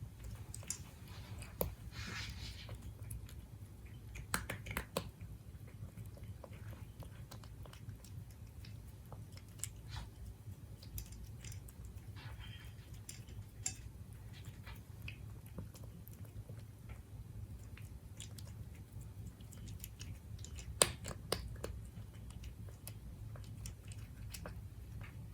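A Siberian cat chewing and crunching its food: scattered small crunches and clicks, the sharpest about twenty seconds in, over a steady low hum.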